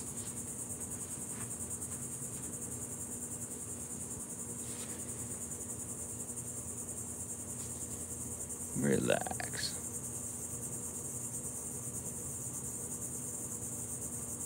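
Steady, high-pitched chorus of insects with a fine, rapid pulse, over a faint low steady hum.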